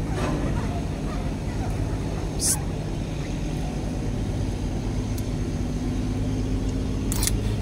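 Boat engine running steadily with a low hum, with a couple of brief sharp clicks, one about two and a half seconds in and one near the end.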